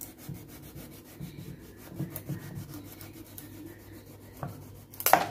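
A kitchen knife sawing back and forth through a hard raw butternut squash on a wooden chopping board, a rasping rub at each stroke. A sharp knock sounds near the end.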